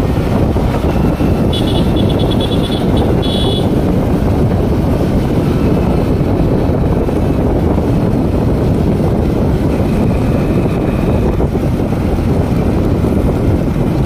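Steady rush of wind and road noise from a motorcycle riding along at speed. About two seconds in, a brief run of rapid high-pitched pulses sounds over it.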